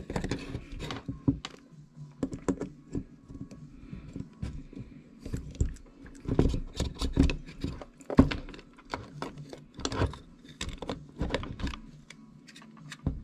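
Repeated light clicks and knocks of small parts being handled as the main shaft with its rotor head is slid down through the frame and main gear of a 450-size RC helicopter.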